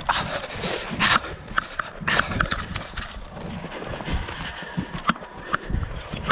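Footsteps and brush swishing against clothing as a person walks quickly through dense scrub and tall grass, with uneven low thumps of steps and a few short sharp ticks.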